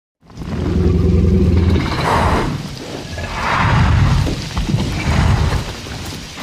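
Film sound effect of a Tyrannosaurus rex: a deep, pitched roar that starts suddenly and swells twice, each swell lasting about two seconds, then tails off.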